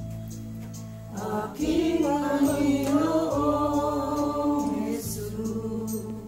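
Music: a song with singing voices over steady, sustained bass notes. The voice comes in about a second in and drops out near the five-second mark.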